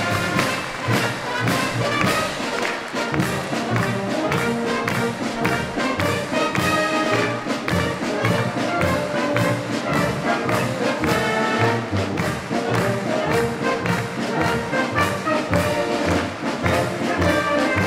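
Wind band playing a march: trumpets, flugelhorns, tubas and clarinets over a steady beat from bass drum, snare drum and cymbals, the band marching in as it plays.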